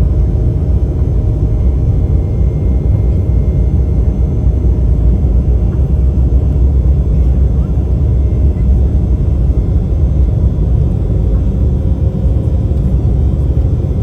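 Steady, loud low rumble of an Embraer 195's twin GE CF34-10E turbofans and airflow, heard from inside the passenger cabin during the take-off.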